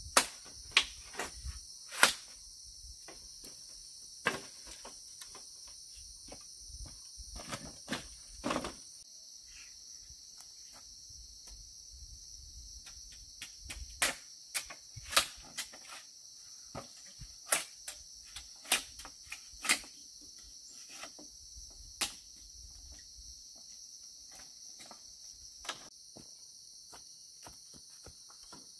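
A steady high-pitched chorus of insects, with sharp knocks and taps from work scattered irregularly through it; the loudest comes about two seconds in, and a cluster of knocks comes about halfway through.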